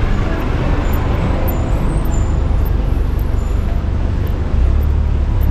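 City street traffic: a steady wash of motor vehicle noise with a deep engine rumble that grows louder about four and a half seconds in.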